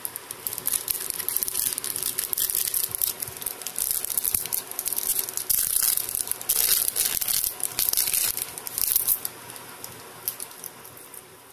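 Clear plastic wrapping crinkling and crackling in quick irregular bursts as it is worked off a stainless-steel watch, dying away near the end.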